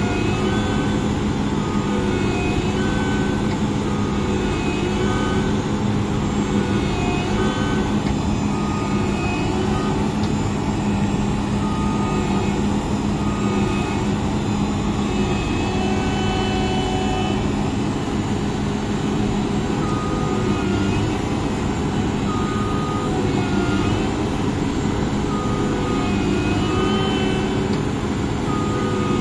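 A Massey Ferguson CS6050 tracked combine harvester running steadily under load, its engine drone holding even throughout. Short, high squeaking tones come and go over it.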